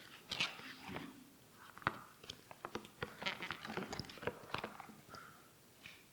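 Irregular rustling with scattered soft clicks and light knocks, dying away near the end.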